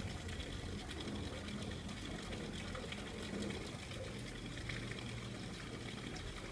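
Steady running water, an even rushing hiss that does not change.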